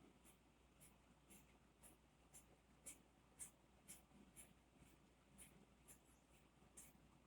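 Faint, scratchy ticks, roughly two a second and unevenly spaced: a screw being turned in by hand while assembling a flat-pack desk.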